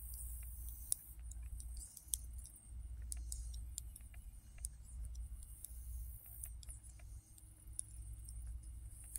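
Metal knitting needles clicking and tapping against each other in quick, irregular strokes as stitches are worked, over a steady low rumble.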